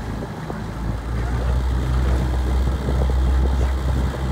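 Motorboat engine running steadily with a low hum, growing a little louder about a second in, with wind and water noise over it.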